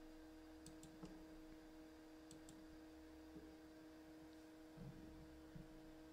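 Near silence: a faint steady electrical hum, with two quick pairs of faint clicks like double-clicks on a computer.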